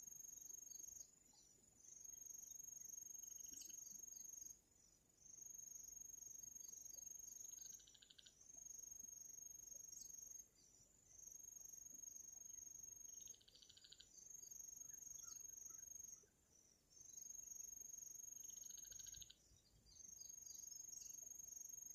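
Faint crickets trilling: a high, steady trill that runs for two to three seconds at a time with short breaks. Four times, about every five seconds, a brief rapid rattling call sounds lower down.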